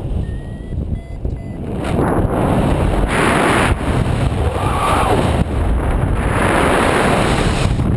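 Wind rushing over the microphone of a paraglider pilot's action camera in flight, a rough steady noise that strengthens about two seconds in. A few faint short beeps sound in the first second and a half.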